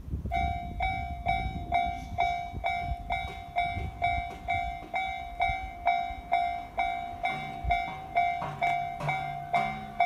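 Japanese railway level crossing's electronic warning bell, of the Tōjō type, starting up and ringing about twice a second: the crossing is signalling an approaching train. A second, lower-pitched pulsing tone joins about seven seconds in.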